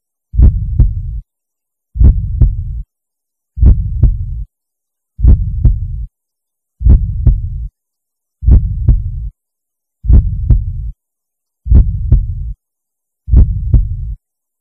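Heartbeat sound effect: slow double beats about once every second and a half, each pair trailed by a low hum that cuts off to silence before the next.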